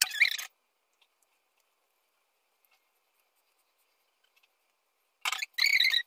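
Silicone kitchen utensil rubbing and scraping against a glass bowl: a brief scratchy scrape at the start, then near silence for about four seconds, then about a second of squeaky scraping near the end as batter is smoothed in the bowl.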